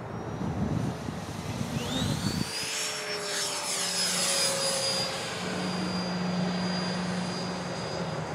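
Electric ducted-fan motor of a Freewing T-33 Shooting Star model jet flying by with a high whine. About two seconds in the whine rises in pitch, then holds steady.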